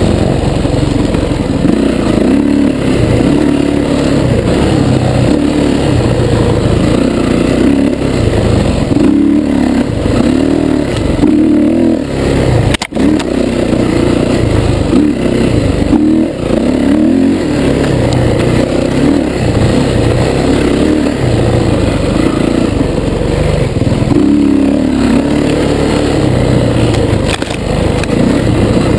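Dirt bike engine running hard, its pitch rising and falling over and over as the throttle is worked, with a brief dropout in the sound near the middle.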